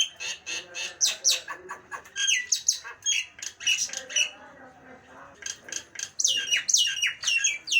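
A Nias hill myna calling loudly in quick runs of whistles and squawks, many sliding sharply downward in pitch, with a short lull a little past the middle.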